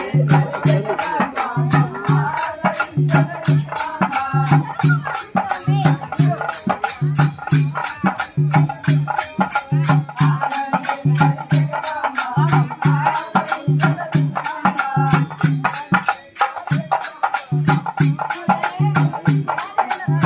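Kolatam folk dance music: a drum beating a steady repeating pattern of paired strokes about once a second, under fast, even, sharp clicking and voices singing.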